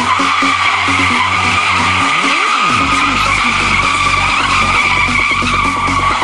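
Mercedes W123 coupe doing a burnout: the spinning rear tyre squeals loudly and steadily on concrete, with the engine held at high revs underneath.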